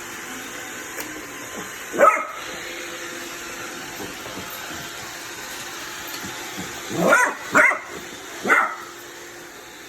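Basset hound puppy barking at a running Roomba robot vacuum: one short bark about two seconds in, then three more close together near the end, over the vacuum's steady whir.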